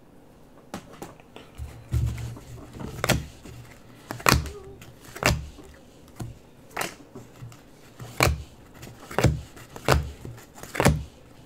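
Trading cards handled one at a time: a short, sharp card slap or slide roughly once a second as each card is moved off the pack, after a few softer low bumps near the start.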